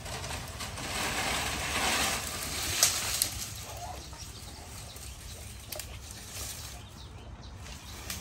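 Dry cut branches and leaves rustling as they are handled, swelling about a second in, with a couple of sharp snaps about three seconds in.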